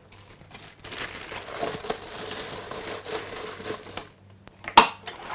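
A thin plastic bowl cover crinkling and rustling as it is unfolded and stretched over a stainless-steel mixer bowl, with a short sharp sound near the end.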